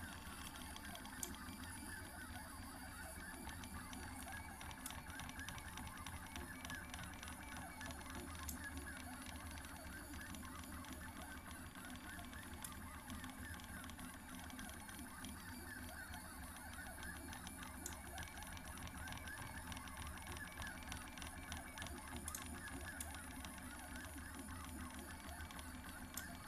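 Prusa i3 3D printer's stepper motors whining as it prints, in many short tones that keep shifting in pitch as the axes move, over a steady low hum.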